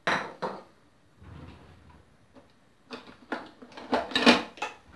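Light clicks and knocks of kitchenware handled on a kitchen counter: a small glass bowl is set down at the start, then a quick run of sharper knocks comes about three to four seconds in.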